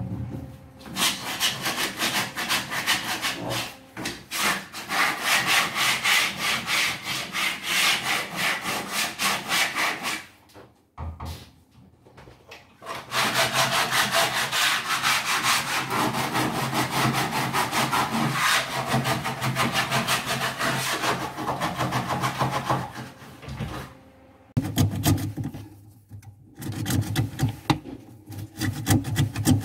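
Hand-sanding a wooden cupboard: quick back-and-forth rasping strokes of an abrasive pad on wood. The strokes stop for about two seconds around ten seconds in, then carry on, sounding duller near the end.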